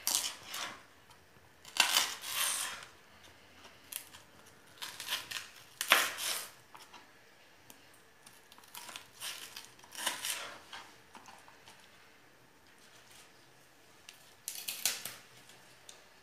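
Knife cutting through Swiss chard stalks on a plastic cutting board, in short separate strokes a few seconds apart.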